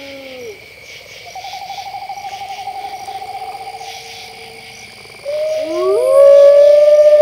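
Wolf howls over a steady chirring of crickets. A howl drops off at the start, then a long quavering howl follows. About five seconds in, a louder howl rises and holds.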